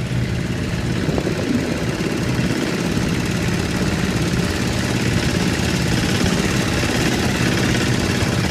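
Motor engine running steadily with a low hum and no change in speed.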